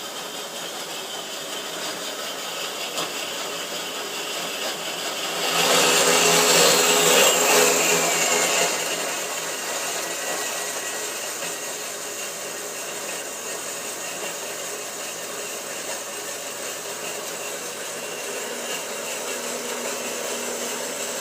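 Harbor Freight 4x6 metal-cutting bandsaw running, its blade cutting through 1-inch steel square tube under its own weight. It gets louder and harsher from about five to nine seconds in, with a high squeal that falls in pitch.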